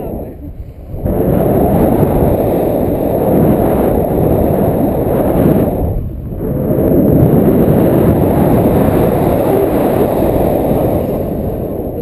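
Loud wind noise buffeting an action camera's microphone in the airflow of a tandem paraglider in flight. It dips briefly just after the start and again about six seconds in.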